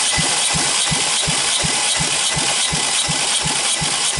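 Volvo B4164T 1.6 L turbo four-cylinder engine turning over on its starter motor during a compression test of cylinder three, with an even pulse about three times a second. This cylinder reads 10 kg/cm², against 12 on the other cylinders.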